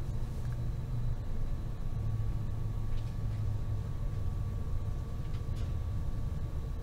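Cabin noise inside a Stadler KISS double-deck electric train under way: a steady low rumble from running gear and track, with a faint steady whine above it.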